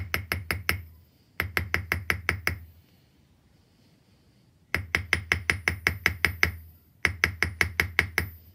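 Cross-peen hammer striking sterling silver wire on a steel bench block in quick runs of about six or seven ringing blows a second, four runs with short pauses between them: cold forging to draw out and elongate the wire.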